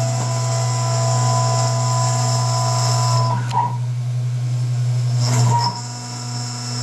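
Desktop CNC milling machine running: a 300 W air-cooled spindle whines steadily over a constant hum while the cutter mills a small metal embossing die. Its higher tones drop away for about two seconds mid-way, then come back as the machine moves on to the next pass.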